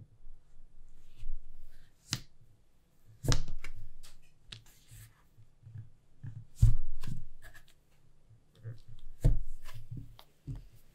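Plastic bench scraper cutting through a block of buttery sablé tart dough and knocking down onto a silicone baking mat: a series of soft knocks and ticks, with four sharper ones.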